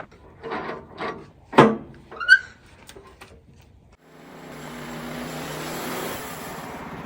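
A few wooden knocks and clatters as boards are handled. About four seconds in, the WoodMizer LX55 sawmill's engine comes in and runs steadily, growing louder.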